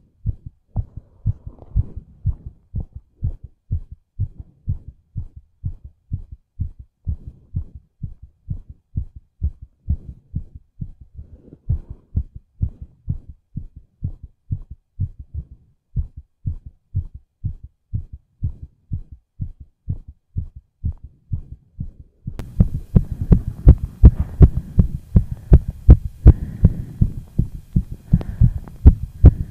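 A fast human heartbeat: rapid, regular low thumps. About two-thirds of the way through it becomes louder, with a faint hiss behind it.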